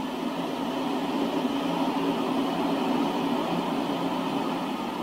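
Freight train of covered wagons rolling past, a steady rumble of wheels on the rails that swells a little in the middle.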